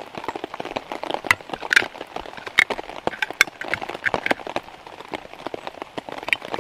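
Rain falling on a tarp shelter: heavy drops land as irregular, sharp taps and clicks over a faint steady patter.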